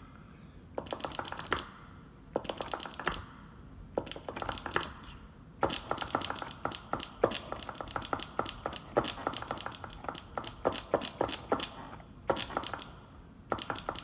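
Rapid runs of sharp key clicks and taps in bursts, keyboard typing sounds used as the notes of a tune, with short pauses between the runs and a long unbroken run in the second half.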